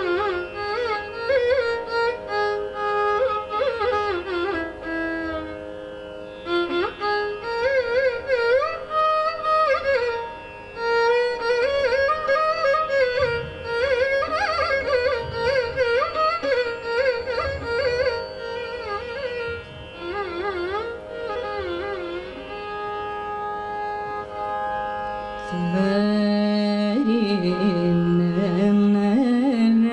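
Carnatic violin playing a solo melodic passage full of sliding ornaments, over a steady drone. About 25 seconds in, a woman's voice comes in singing, lower than the violin line.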